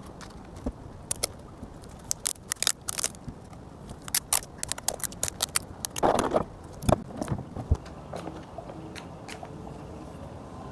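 Sharp clicks and taps of wooden matchsticks and a cardboard matchbox being handled on a hard table top. About six seconds in, a short rasping burst as clear adhesive tape is pulled off its roll.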